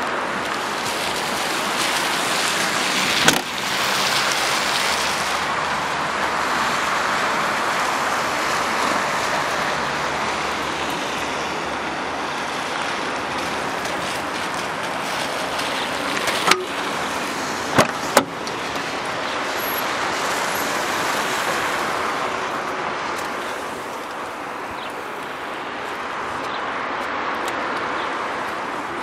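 Steady outdoor traffic noise. About three seconds in comes one loud slam as the hatchback's tailgate is shut. A little past halfway there are a few sharp clicks as the fuel filler flap is closed.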